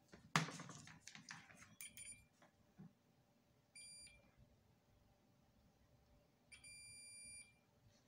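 Suoer SD 9205A digital multimeter's continuity buzzer beeping twice as the test probes touch points on the amplifier circuit board: a short beep about four seconds in and a longer one near seven seconds, each the sign of a low-resistance path between the probes. Near the start, a brief clatter of clicks and handling noise from the probes and board.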